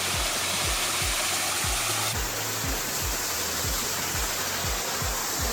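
Background music with a steady low beat, under a loud, even rush of running water that shifts in tone about two seconds in.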